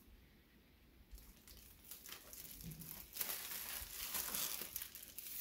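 Clear plastic wrapping crinkling as it is handled. It is faint at first, begins about a second in, and grows louder in the second half.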